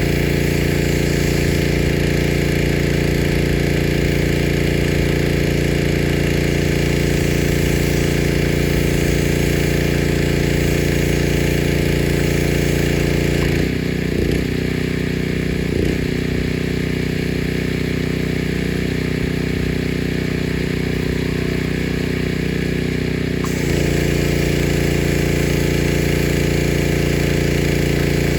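Pressure washer running steadily while spraying, with a hiss from the spray over the low note of the machine. About halfway through the spray stops for roughly ten seconds, leaving the machine running with a changed note, then it starts spraying again.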